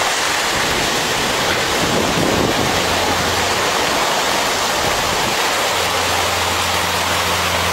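Steady rush of surf washing on a beach, with a low steady hum coming in about six seconds in.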